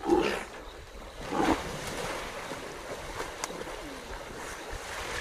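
Water splashing and churning as a lion and a waterbuck struggle in a river. There are two louder bursts, one at the start and one about a second and a half in, over a steady wash of moving water.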